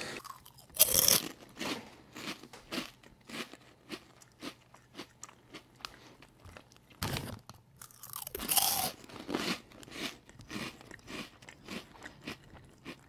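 Irregular crackling and crunching clicks from something being handled, with louder clusters about a second in and again around seven to nine seconds in.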